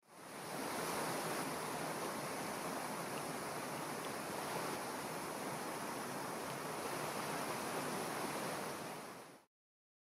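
Steady rushing of water at the Riesloch waterfalls, a mountain stream cascading over rocks. It fades in quickly at the start and cuts off abruptly about nine and a half seconds in.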